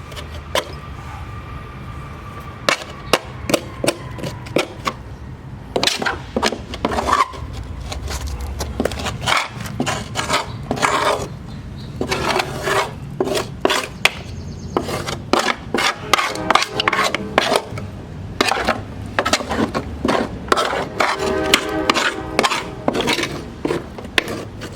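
Screwdriver and small pry bar scraping and chipping dried, caked grass clippings off the underside of a push mower's deck, in irregular scrapes and sharp taps of metal on metal. A low steady hum runs underneath.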